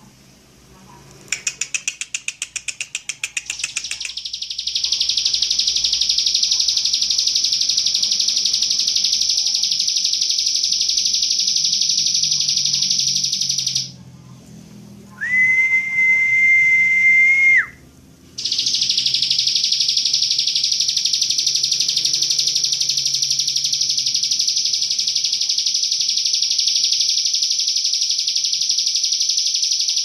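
Prinia (prenjak) singing: a quick stutter of high notes that runs into a long, continuous, high buzzing trill lasting about ten seconds. Around the middle the trill stops and a single steady whistled note holds for about two seconds, then the long buzzing trill starts again.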